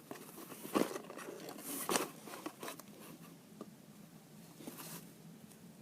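Handling noise on a homemade squishy vending machine: a few knocks and rustles, the two loudest about one and two seconds in, then a brief rustle near the end.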